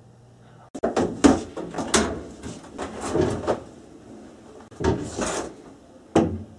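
A run of clunks and knocks with cloth rustling as laundry is pulled out of a machine and handled at a basket. They come in a busy cluster starting about a second in, another around five seconds in, and one last sharp clunk near the end.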